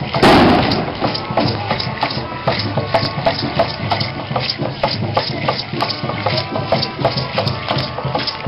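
Music for a street dance troupe: hand rattles shaken in a steady beat of about three to four strokes a second over drumming, with a thin melody line. It opens with one loud hit.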